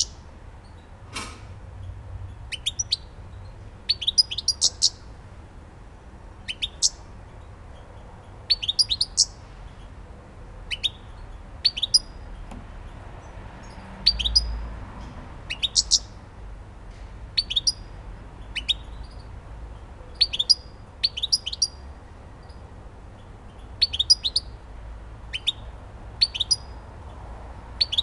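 European goldfinch calling in short, high chirps that come in little clusters of two to four notes, about one cluster every second or two. A brief low thump comes about halfway through.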